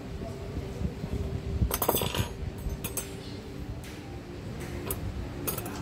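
Dishes and cutlery clinking on a table: a cluster of clinks about two seconds in, then a few scattered clinks near the end.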